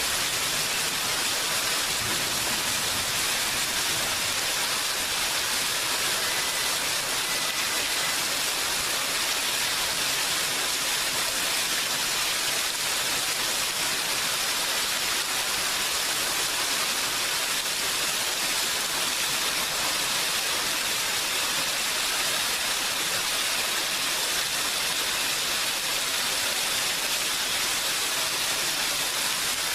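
Steady rain, an even hiss with no breaks or changes.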